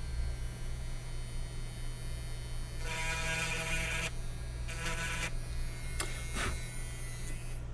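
Small electric grinding pen running in two short bursts, a thin motor whine, as it scrapes the solder mask off a circuit board trace to expose copper for a continuity test, over a steady electrical mains hum.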